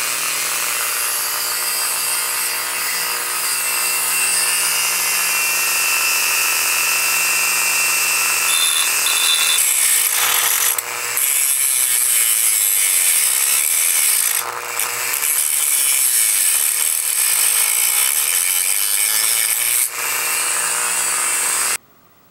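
Small handheld rotary tool running with an abrasive cut-off wheel, grinding through a screw held in a vise to shorten it: a steady motor whine under a harsh, high grinding hiss. It eases off briefly a few times, then stops suddenly near the end.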